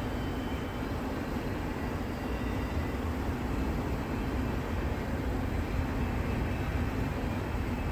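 Steady rumble of a double-stack container train's cars rolling over the rails in the distance.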